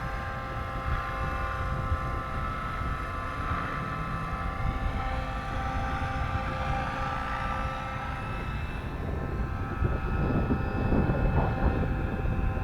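Battery-electric scale Airwolf RC helicopter in flight: a steady whine of motor and rotor with several held tones. Wind buffets the microphone more toward the end.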